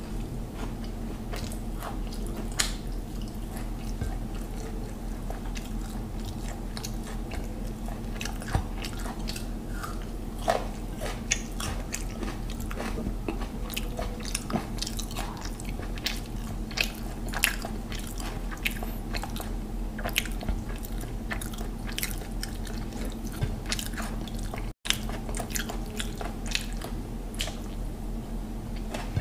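Close-up chewing and biting of mutton biryani eaten by hand: wet mouth clicks and smacks at an irregular pace, over a steady low hum.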